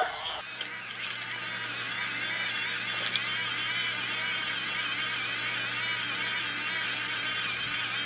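Tiny battery-operated toy washing machine running, its small motor giving a steady high-pitched whir that wavers as it spins a damp makeup sponge in water.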